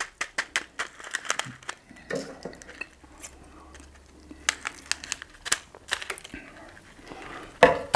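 Small packet of spicy sunflower seeds being torn open and handled: a quick run of crinkles and clicks in the first two seconds, then a few scattered clicks.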